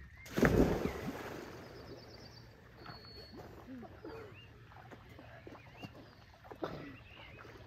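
Splash as people jump into a lake together, a loud burst of water about half a second in that hisses and settles over the next second or so.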